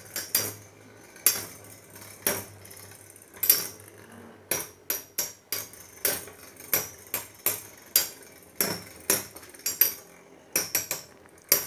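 Two Metal Fight Beyblade tops, Burn Phoenix and Phantom Orion, spinning in a plastic stadium and repeatedly knocking their metal wheels together in sharp clacks, about two a second. The clashes come closer together after the first few seconds.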